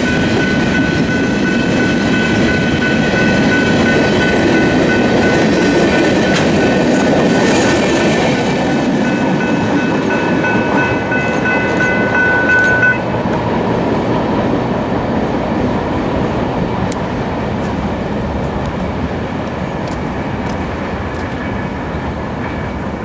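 A freight train of empty flatcars rolling over a level crossing, its noise fading as the end of the train passes. Over it, the crossing's General Signals Type 3 electronic bells ring steadily, then cut off suddenly about halfway through as the signals deactivate.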